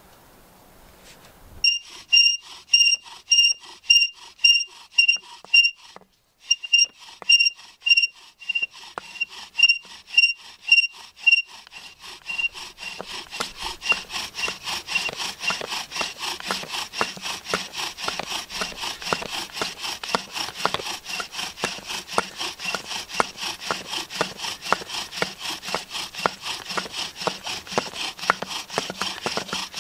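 Bow drill: a wooden spindle spun back and forth in a wooden hearth board by a bow, each stroke giving a sharp high squeak at about two strokes a second. From about twelve seconds in the squeak fades into a faster, steady grinding rub as the spindle bites into the board and it begins to smoke, the stage that builds toward an ember.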